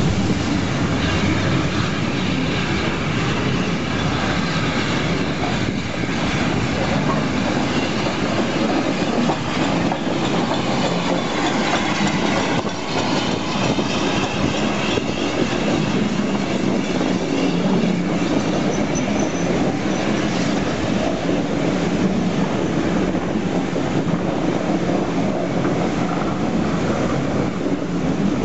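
WD Austerity 2-8-0 steam locomotive No 90733 and its coaches rolling in and past along the platform: a steady noise of wheels on rails, with a brief faint high squeal about two-thirds of the way through.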